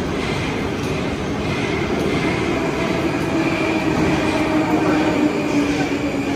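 Metro train running along the platform behind the screen doors: a steady rumble, with a thin high squeal coming in and strengthening about halfway through.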